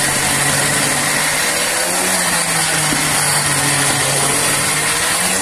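Countertop electric blender running steadily at speed, its motor blending a thick mango purée, cream and condensed-milk mixture.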